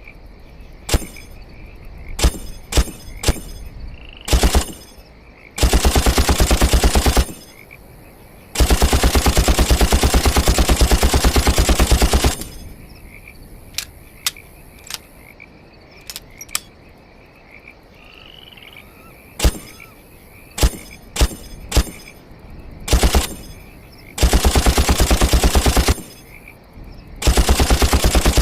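FN SAW (M249) 5.56 mm light machine gun firing. Single shots and short bursts alternate with long bursts of automatic fire, the longest lasting nearly four seconds near the middle.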